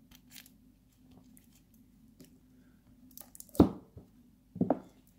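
Light clicks and rustles as a watch is worked off its cushion, then two short dull thumps about three and a half and four and a half seconds in. The first and louder thump is the lid of a matte wooden watch box being shut.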